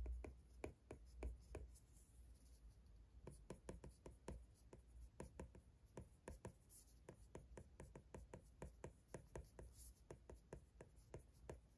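Apple Pencil tip tapping and scratching on an iPad Pro 12.9-inch screen fitted with a low-glare anti-fingerprint screen protector, writing by hand: quick, irregular light taps, several a second.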